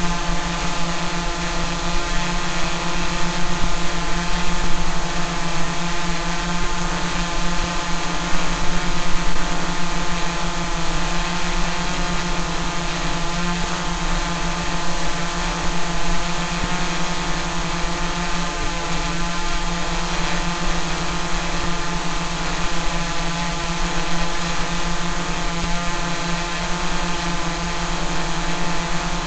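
Quadcopter drone's propellers and motors hovering with a steady buzzing hum, holding one pitch throughout.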